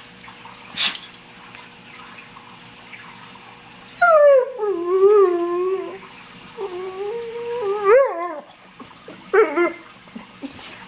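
German Shorthaired Pointer 'talking': drawn-out, wavering howl-whines that slide down and up in pitch, two long ones about 4 and 7 seconds in and a short one near the end. A sharp click sounds about a second in.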